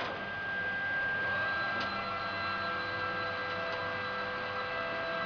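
Steady machinery hum with several thin, constant whining tones over it, from the running equipment of a CNC wood router setup.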